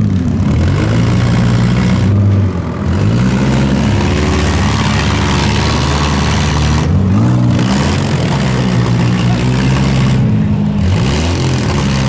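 Demolition derby compact car engines running hard, revving up and easing off three times.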